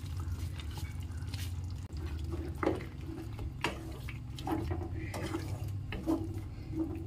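Spatula stirring a thick, simmering tomato-onion masala gravy in a non-stick kadhai as spice powder is mixed in: wet, sloppy liquid sounds with repeated short scrapes and taps of the spatula against the pan. A steady low hum runs underneath.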